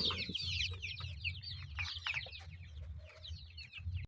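A brood of chicks peeping nonstop, many short high chirps overlapping, growing fainter toward the end, over a steady low hum.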